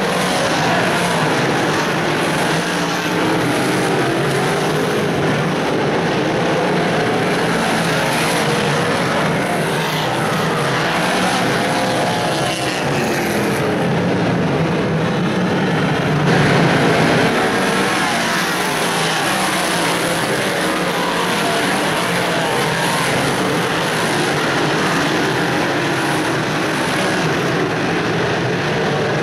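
Big-block modified dirt-track race cars running their large-displacement V8 engines at speed around the oval. A steady, dense drone of several engines together swells briefly a little past halfway.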